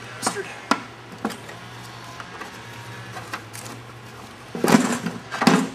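Metal clicks and clatter as a lawnmower engine is unbolted and worked loose from its steel deck by hand: a few sharp clicks in the first second or so, then two louder bursts of clattering and scraping near the end.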